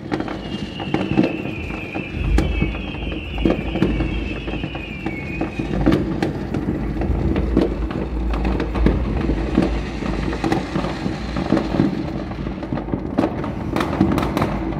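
Many fireworks going off across the city, near and far: a continuous scatter of bangs and crackles. A high, wavering whistle drifts slightly downward through the first five seconds.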